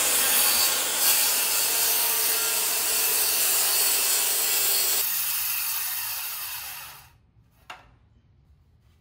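DeWalt circular saw cutting straight across a 6x6 wooden post. The blade is in the wood for about five seconds, then the sound thins and dies away by about seven seconds in as the saw comes free and winds down.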